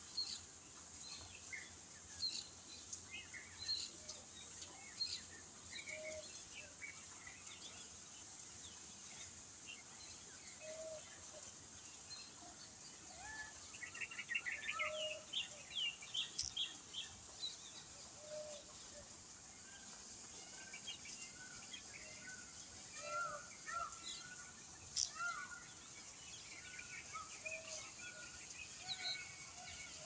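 Several wild birds chirping and calling in a morning chorus, with a quick run of rapid chirps about halfway through and a short lower note repeating every couple of seconds, over a steady high hiss.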